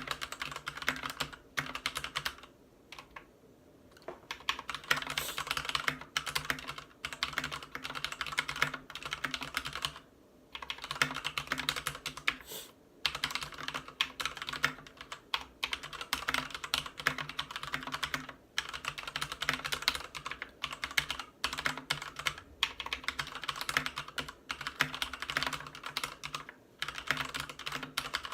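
Fast continuous typing on a Ducky Zero 3087 mechanical keyboard with Cherry MX Red linear switches and PBT keycaps, a dense run of keystroke clacks broken by a few short pauses.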